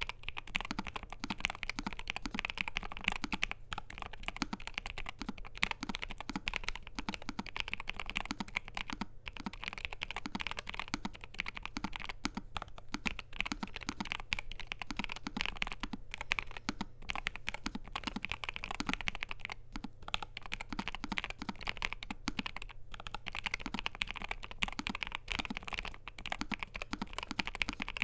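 Continuous fast typing on a NuPhy Air75 V2 low-profile mechanical keyboard with NuPhy Cowberry switches, PBT double-shot low-profile keycaps and an aluminium plate: a dense run of keystroke clacks with brief pauses.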